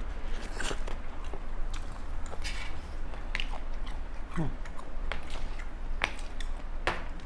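A person chewing and biting food close to the microphone, with many short wet mouth clicks and smacks scattered irregularly throughout.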